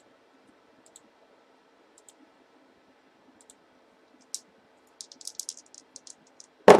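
Light, scattered clicks. They come in a quick run about five seconds in, and a single loud thump follows near the end.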